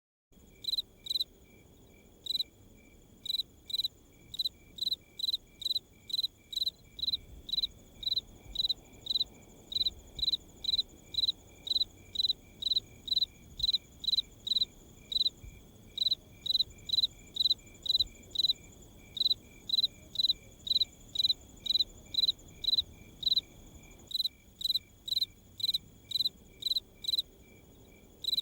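Crickets chirping at night in a steady rhythm, about two high chirps a second, over a faint, steady high-pitched insect drone.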